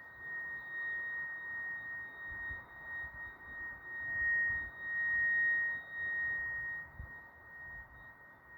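A steady, high-pitched hum heard in the night sky: one unwavering tone with a fainter overtone above it. It swells louder around the middle and eases off again, over a faint low rumble.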